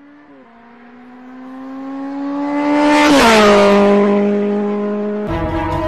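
A car passing by: its engine tone grows steadily louder for about three seconds, drops in pitch as it goes past, then fades away.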